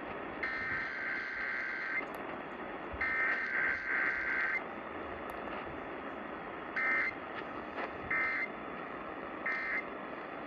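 Emergency Alert System SAME digital data bursts played over the radio, a harsh warbling screech: two longer header bursts, then three short bursts about a second and a half apart, the end-of-message code. A steady radio hiss runs under them.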